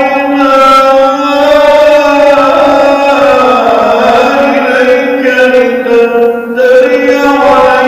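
A man's voice reciting the Quran in the melodic, chanted mujawwad style, holding long ornamented notes that glide slowly in pitch, with a dip near the middle.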